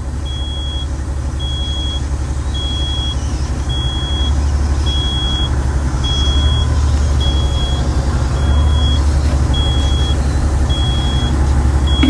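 Caterpillar 3406E inline-six diesel in a Kenworth T600 running steadily, heard from inside the cab, with a short high-pitched warning beep repeating about once a second.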